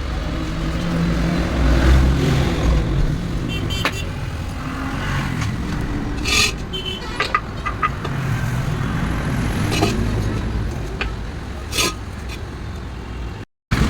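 Low, steady vehicle engine rumble with traffic noise, broken by scattered sharp clicks and knocks. The sound cuts out for a moment near the end.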